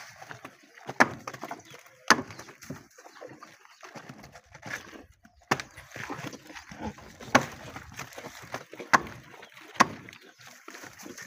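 A machete chopping banana stem against a wooden trough: about seven sharp chops, irregularly spaced. Between the chops there is softer crunching from calves chewing the cut stem.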